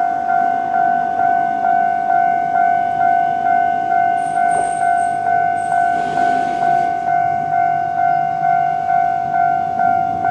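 Japanese railway level-crossing warning bell ringing its repeated electronic ding, about two strokes a second, the signal that a train is approaching. Around the middle a faint high whine and a brief hiss sound under it.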